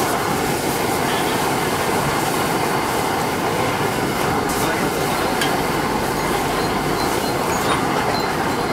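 King prawns deep-frying in hot oil in a covered pan: a steady, loud sizzling crackle. The metal lid gives a faint clink or two about halfway through as it is lifted and put back.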